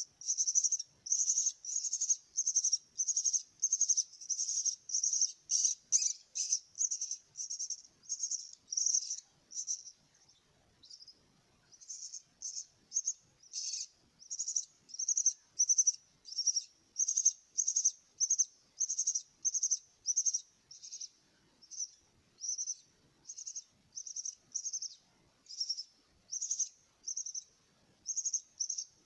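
Starling chick begging with short, high-pitched chirps repeated about twice a second, breaking off briefly about a third of the way through and then resuming.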